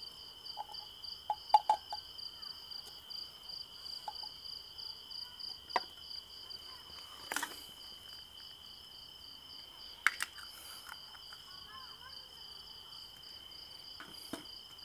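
Crickets chirping steadily, a high continuous trill together with a rapid pulsing chirp. Over it come a few sharp clinks of a metal ladle against glass jars and the jam pot, the loudest two close together about one and a half seconds in and another about ten seconds in.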